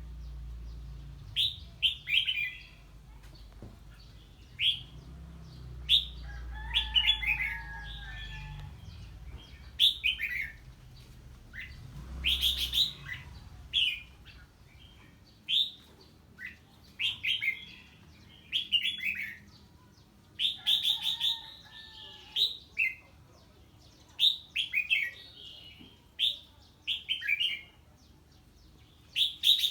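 Red-whiskered bulbul singing 'ché': bursts of short, sharp, high notes, many falling in pitch, repeated in quick clusters, an excited response to the call of an unfamiliar bird.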